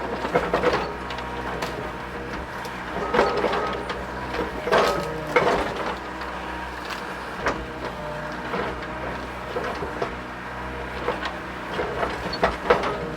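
Mini excavator's diesel engine running steadily, with irregular clunks and knocks from the machine working, a dozen or so scattered through the stretch.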